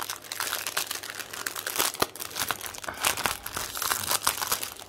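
Crinkling plastic packaging being worked open to get at bags of diamond painting drills, a dense run of irregular crackles and rustles.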